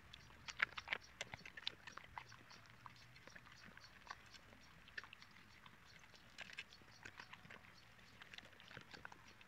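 Golden retriever chewing dried treats and licking them off a plate: many small irregular wet clicks and crunches, busiest in the first couple of seconds.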